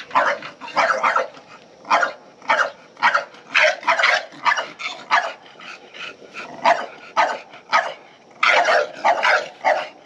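A dog barking over and over in short, sharp barks, about two a second, with a short pause a little past the middle and a quick run of barks near the end.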